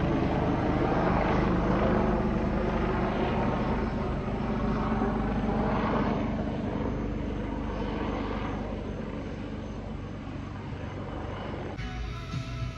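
Aircraft engine noise from an aircraft flying past, slowly fading as it moves away, then cutting off suddenly near the end.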